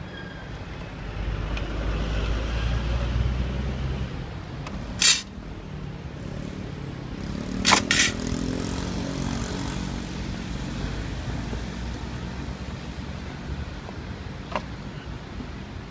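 Street traffic passing on the road, a low rumble that swells in the first few seconds and then carries on more faintly. Sharp clicks cut through it about five seconds in, a louder pair near eight seconds, and a faint one near the end.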